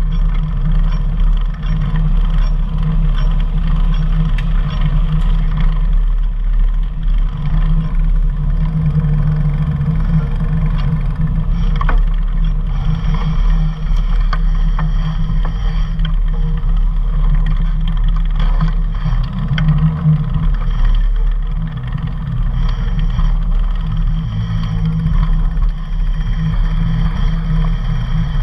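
Steady low wind rumble on a bicycle-mounted action camera's microphone while riding along a road, with traffic noise mixed in.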